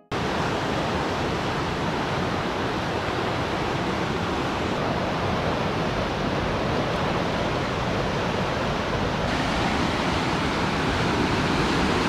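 Fast mountain river rushing over rapids: a steady, even noise of churning white water.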